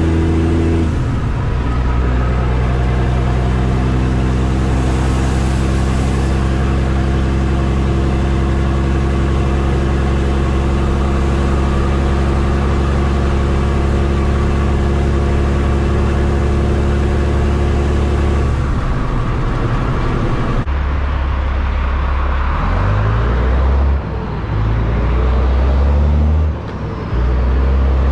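Kenworth T800's Caterpillar C15 diesel engine running steadily under load at cruising speed, heard from the cab. Near the end the engine pulls up through the gears of its 10-speed transmission: the revs climb and drop twice at the shifts.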